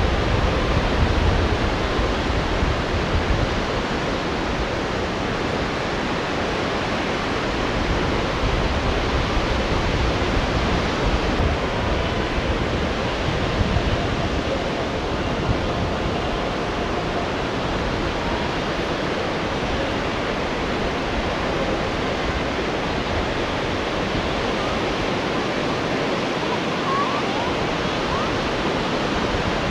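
Heavy surf breaking in rough seas: a steady, even rush of whitewater noise, a little louder with more low rumble in the first couple of seconds.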